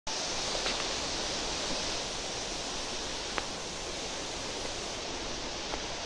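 Steady rush of falling and running water from the Moon Waterfall, about 120 m high, and the fast river below it, an even hiss with no change. One faint click a little past the middle.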